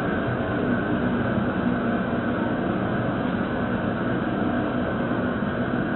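Propane jet burner under a crawfish boil pot running with a steady rushing noise and a faint low hum.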